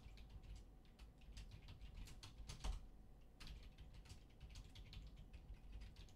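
Typing on a computer keyboard: an irregular run of soft key clicks, with one louder click about two and a half seconds in.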